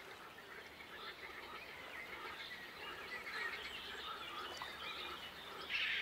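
Wetland ambience of many birds chirping and calling over one another, with a denser, louder burst of chirping near the end.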